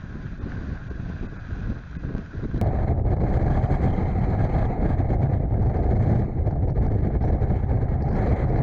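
Rumbling wind on the microphone over a moving vehicle's running noise, getting abruptly louder about two and a half seconds in.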